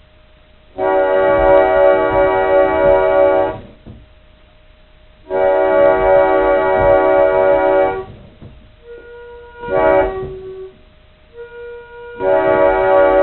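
Old pump organ sounding a D# minor seventh chord (D#, F#, A#, C#) as an imitation of an Amtrak SL4T air horn. It comes as four blasts: long, long, short, then a long one that is still sounding at the end. This is the long-long-short-long pattern of a grade-crossing horn signal.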